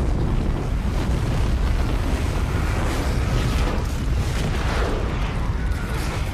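Avalanche sound effect from a film: a loud, continuous low rumble of rushing snow, with surges in the higher rushing noise partway through.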